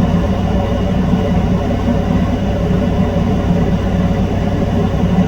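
Steady low hum and rumble, unchanging throughout.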